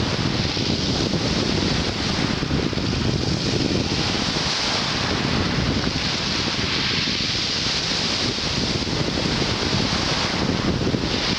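Black Sea surf washing continuously onto the shore in rough weather, with wind rumbling on the microphone. The roar swells and eases slightly without any single sharp break.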